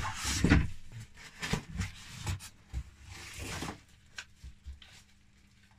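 Rustling and crinkling of cardboard, plastic wrapping and paper as packaging is rummaged through and a remote control is pulled from its bag, with a few light clicks near the end. Loudest in the first second, then trailing off.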